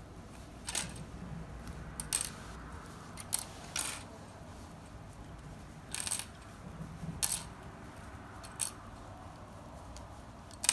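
Small plastic Strandbeest kit parts being twisted off their plastic support strips (sprues), each breaking free with a sharp click, about seven times at uneven intervals.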